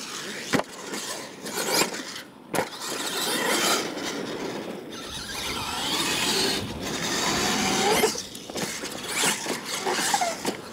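R/C monster truck running on a dirt track: the motor's pitch glides up and down with the throttle, the tyres scrabble in loose dirt, and there are a couple of sharp knocks, the first about half a second in and another at about two and a half seconds.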